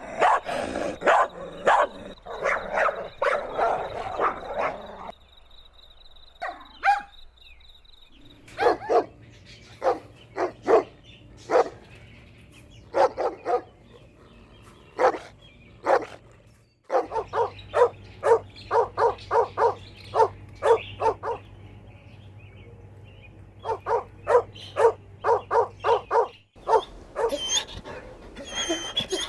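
Dogs barking: many short barks, in places in quick runs of about three a second, broken by abrupt cuts. Higher-pitched yips near the end.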